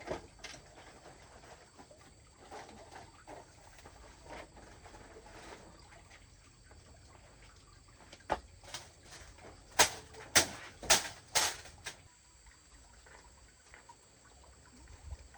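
Quiet background, then sharp knocks: one about eight seconds in, and a quick run of four about half a second apart a little later.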